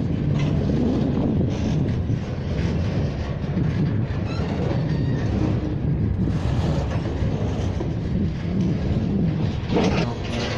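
A long freight train's cars rolling past: a steady rumble and clatter of steel wheels on rail, with occasional sharper knocks.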